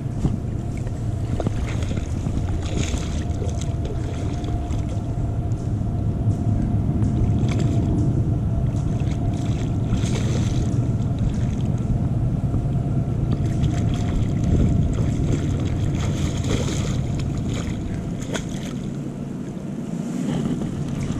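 Steady low rumble of creek water and wind on the camera microphone, with several brief splashes from a hooked steelhead thrashing at the surface.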